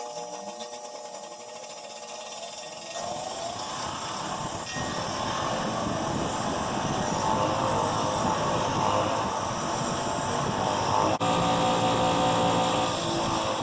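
A power tool's motor running, its pitch shifting in the first few seconds, then a rough, dense grinding-and-scraping noise from about three seconds in as it works on the vise's rusty shaft threads. The sound cuts out for an instant about eleven seconds in.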